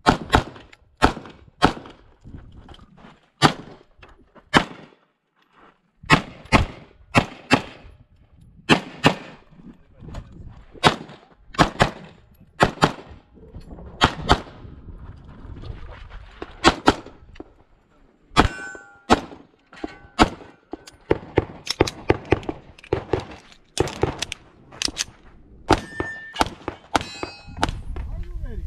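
Rapid pistol gunfire during a USPSA stage run: dozens of shots, many fired in quick pairs, with short pauses between strings. A brief metallic ring follows a few of the shots.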